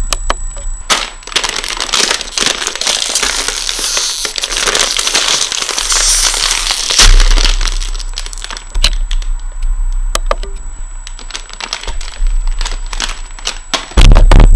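Foil-lined Doritos chip bag being handled and torn open by hand: crinkling, rustling and sharp crackles of the plastic, densest a couple of seconds in.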